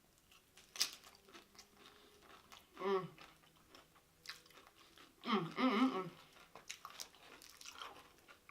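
Close-up chewing and crunching of loaded nachos with tortilla chips, with scattered sharp crackles from the chips, the sharpest about a second in. Two short voiced sounds from the eater come about three seconds and five to six seconds in.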